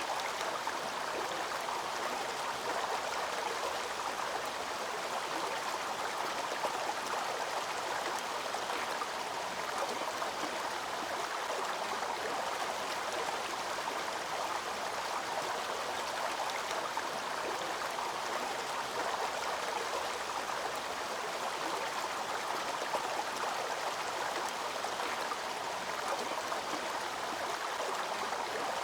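Waterfall and its stream: a steady, even rush of falling and flowing water that does not change.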